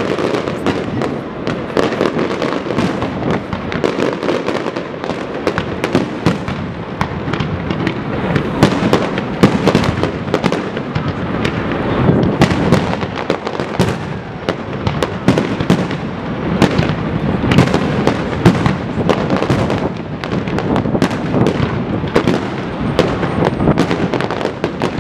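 Aerial fireworks shells bursting in a dense, unbroken barrage: many sharp bangs and crackles following one another several times a second over a continuous rumble.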